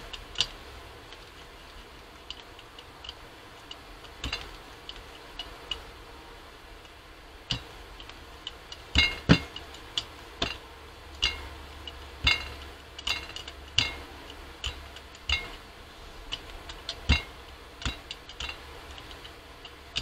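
Brayer rolled back and forth over indigo paint on a gel printing plate, giving irregular sharp clicks and ticks that come thicker in the second half.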